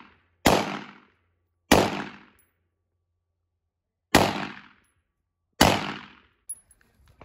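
AR-15-type pistol firing 5.56 mm rounds: four single semi-automatic shots at uneven intervals, each trailing off in a short echo.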